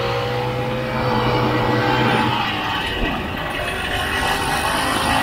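1967 Ski-Doo Olympique snowmobile's single-cylinder two-stroke engine running steadily under way over snow, easing off slightly about three seconds in.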